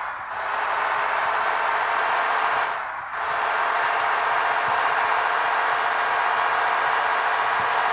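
Steady engine and road noise from a bus-driving video game, heard thin through a small speaker, dipping briefly twice.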